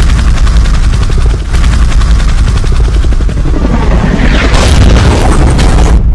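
Helicopter rotor chopping loudly and fast over a heavy low rumble. In the last second and a half a harsher, brighter rush of noise builds on top as the helicopter crashes and explodes.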